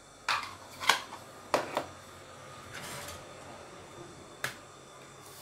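Light plastic mixing bowls knocking and clattering against each other, about five sharp knocks with a short soft hiss between them, as eggs are tipped from one bowl into a large plastic mixing bowl.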